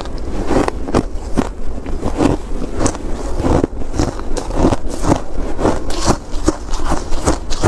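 Close-miked crunching of ice being bitten and chewed: an irregular run of crisp crunches, a few a second, over a steady low rumble.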